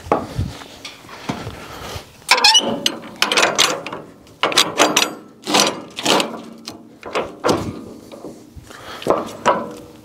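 Irregular wooden knocks, clunks and scrapes, a few with a short metallic ring, starting about two seconds in. A Log Ox 3-in-1 forestry multi-tool is hooked into a log and levered to roll it on a portable bandsaw mill's steel log bed.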